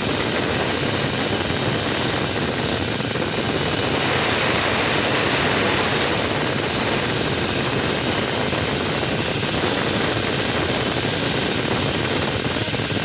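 Concrete cutting machine running steadily, a loud, even, hissing noise that stays much the same throughout.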